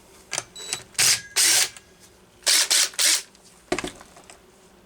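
Hand tools and sockets being handled: sharp clicks and two short scraping, rattling clatters, the loudest about a second in and again around two and a half seconds in.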